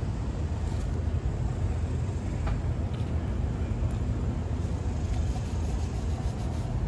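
Steady low rumble of street traffic, with a few faint ticks about halfway through.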